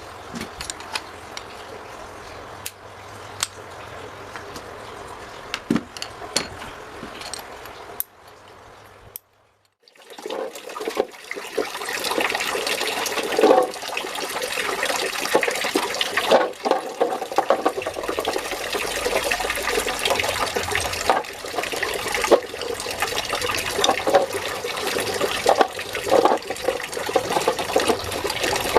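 Running water splashing, with scattered small knocks and clicks; after a brief silent gap about nine seconds in, the water comes back louder and stays so.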